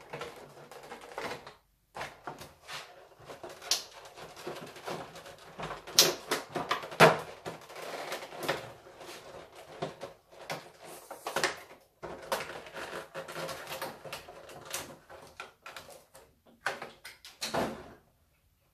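Packaging of a boxed collectible figure being handled and opened by hand: irregular clicks, taps and crinkling rustles with short pauses between. The loudest snaps come about six and seven seconds in.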